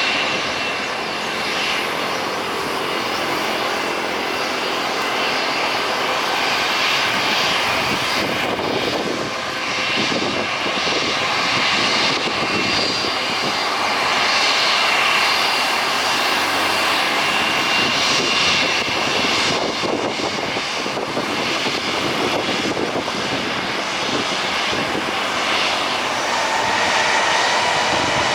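Engines of a Super Air Jet Airbus A320-family jet airliner, a continuous loud noise with high whining fan tones. A faint rising tone comes in near the end.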